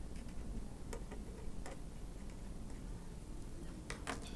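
Felt-tip marker writing on a paper worksheet: a few short, irregular scratchy ticks as the last letters are stroked in, over a faint steady low hum.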